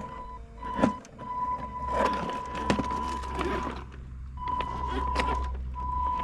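Electric drive motor and gearbox of a vintage Robbe Rodeo 6x6 RC truck running in spurts, a steady whine that stops and starts several times as the throttle is worked. Sharp knocks sound as the truck crawls over the stones, the loudest about a second in.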